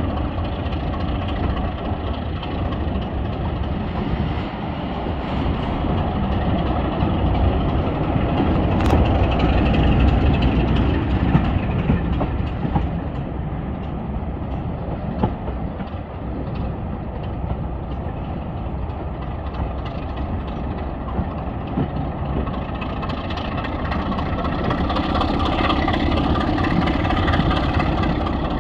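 Diesel railway locomotive engine running steadily, growing louder about ten seconds in and again near the end. A sharp click comes about nine seconds in.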